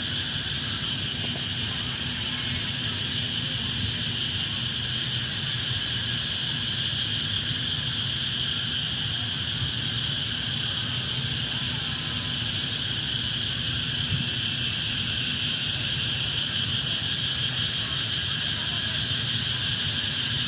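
Steady summer chorus of insects: a continuous shrill buzzing in several high-pitched layers, unchanging throughout, with a faint low hum underneath.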